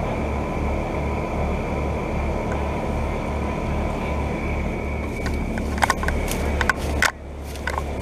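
Outdoor Carrier Comfort series heat pump condenser units running in heat mode: a steady fan and compressor noise with a low throb pulsing about twice a second. The fan motor is what makes them loud. The noise falls away suddenly about seven seconds in.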